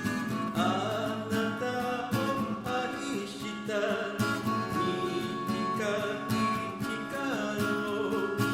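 A singer singing a song in Japanese over acoustic guitar accompaniment, the melody line gliding and wavering in pitch.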